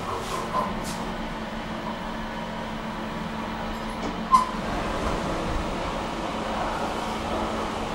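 SMW inclined elevator car running with a steady mechanical hum and a constant low tone as it arrives at the landing. A single short, sharp ping-like click comes about four and a half seconds in, and the car's doors then slide open.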